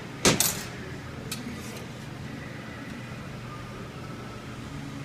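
A sharp metallic clank a quarter second in, as metal transmission parts or tools are set down or knocked together, then a steady shop hum with a faint tick.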